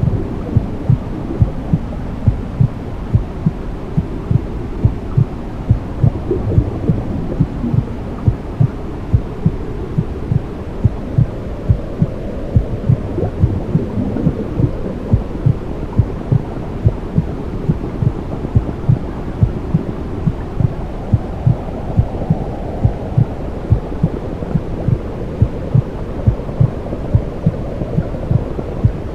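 Womb sound for soothing a baby: a steady low whooshing rumble with a regular heartbeat thumping through it, about two thumps a second.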